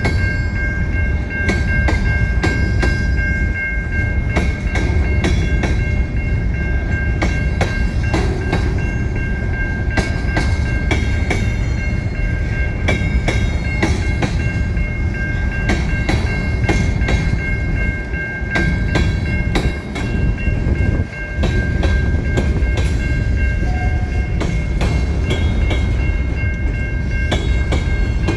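Freight train of covered hopper cars rolling past: a steady low rumble of wheels on rail with frequent clicks and clacks as the trucks pass over the rails, and a steady high-pitched squeal underneath.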